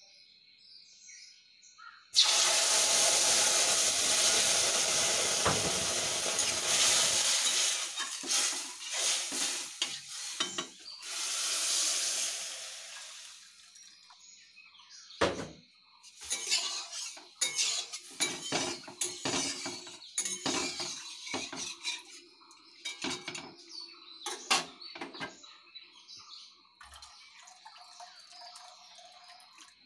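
Water poured from a steel vessel into a hot aluminium kadai of freshly dry-roasted moong dal. It starts suddenly about two seconds in, sizzling and splashing loudly for several seconds, and a second shorter pour follows. Then a metal spatula clinks and scrapes irregularly against the kadai as the dal is stirred in the water to wash it.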